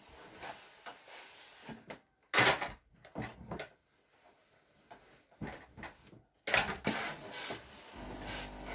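Handling noises while ironing with a steam iron: a few short knocks and scuffs as the iron is set down and moved about over the cloth.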